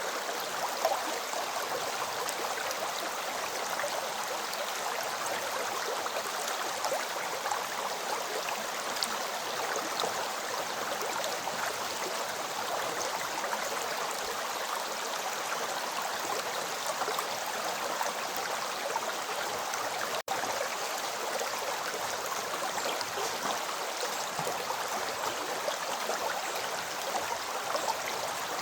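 River flowing steadily: an even rush of water with small splashes, cutting out for an instant about twenty seconds in.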